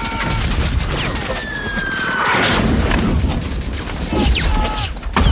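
Film battle sound effects: rapid gunfire throughout, with a falling whistle followed by an explosion about two seconds in.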